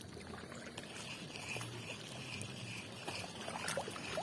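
Small waves lapping on a rocky shoreline, faint, with a pulsing high chirr and a few light clicks over it.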